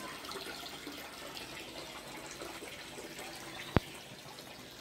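Steady running water, an even splashing trickle, with one sharp click about four seconds in.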